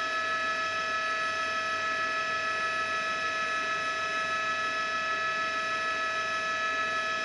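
Steady hum and whine of a helicopter heard from inside the cabin, several fixed tones over an even noise, with no change in pitch or level.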